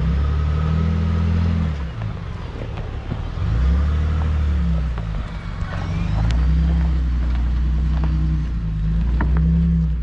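Ford F-150 Raptor pickup's engine running at low speed as it crawls down a rocky trail, the low rumble swelling and easing every second or two with light throttle.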